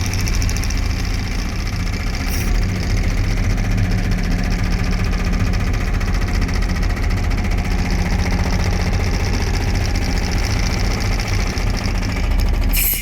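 JCB 3CX backhoe loader's diesel engine running under load while its hydraulic breaker hammers concrete, a fast, even pounding over the steady engine.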